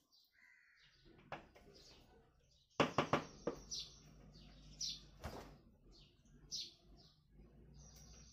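Small birds chirping, short high falling chirps repeating every second or so. About three seconds in, a quick run of sharp knocks, the loudest sound.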